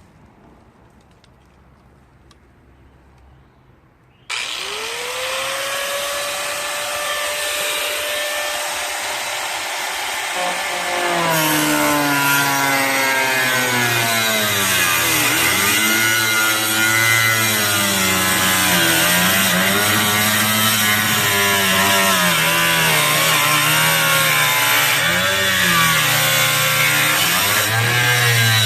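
A power cutting tool starts about four seconds in, its motor whine rising as it spins up. It then cuts into the rusted sheet-metal fender of a Nissan 350Z with a harsh, hissing grind, its pitch dipping and wavering under load.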